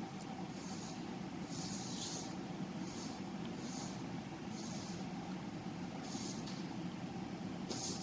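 Paper picture cards being slid around on a table to mix them up: a soft swish about once a second over a steady low hiss.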